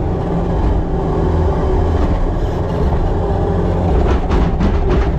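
Farm machine's engine running steadily under load, a loud low rumble heard from inside its cab, with some rattling late on, while corn stalk bales are shaken out for bedding.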